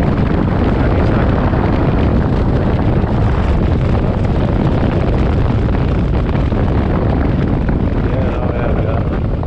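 Motorcycle riding at road speed: the engine runs steadily under heavy wind rush on the microphone, a loud, even rumble.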